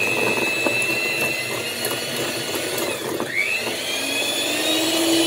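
Electric hand mixer running at medium speed, its beaters whisking egg, sugar and salt in a bowl until the mix foams and turns pale. About three seconds in, the motor whine briefly dips and spins back up.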